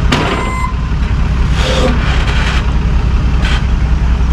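A large vehicle's engine running steadily with a deep, even sound, with a few short hisses and clicks over it.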